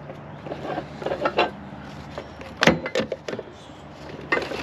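Screw-type boat stand being wound down by its crossbar handle, its wooden pad dropping away from the hull: a series of knocks and scrapes of metal and wood, the loudest about two and a half seconds in.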